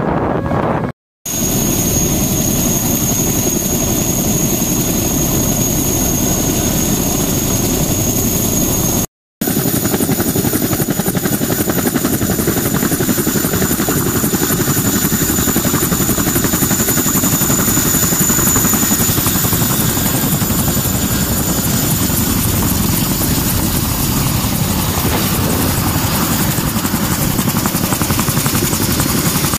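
CH-47 Chinook tandem-rotor helicopter running on the ground, a loud steady rotor and engine noise with a thin high whine over it. The sound drops out briefly twice, about one second and nine seconds in.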